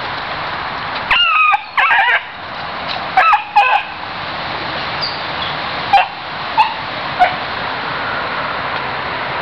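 Bluetick coonhound pup baying: two pairs of short, wavering high howls, then three brief yips, over a steady hiss.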